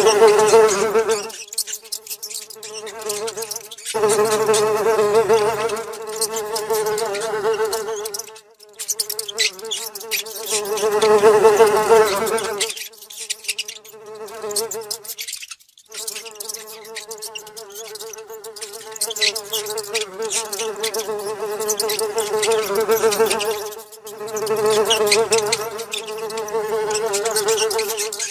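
A housefly buzzing: a steady drone with overtones that swells and fades again and again as the fly comes close and moves off, breaking off briefly about three times. Light rapid clicks run over it.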